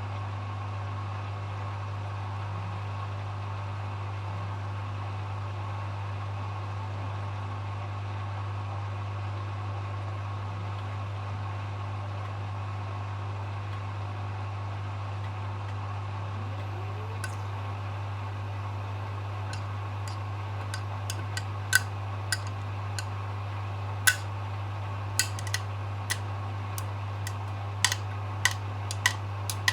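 Hoover HW411AMC washing machine running with a steady low hum. A little past halfway, irregular sharp clicks begin and come more and more often toward the end.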